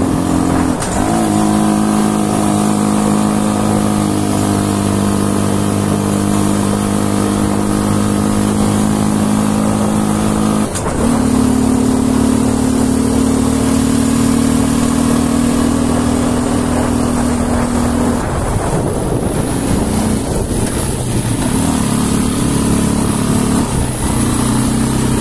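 Engine of a 400 cc 4x4 ATV running hard under steady throttle, its note holding nearly level. The pitch briefly dips and picks up again about a second in and near the middle. In the last several seconds the throttle eases off and the engine settles to a lower, uneven note as the quad slows.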